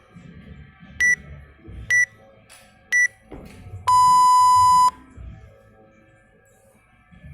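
Interval workout timer counting down: three short high beeps a second apart, then one long lower beep about a second long that signals the start of the next minute's round.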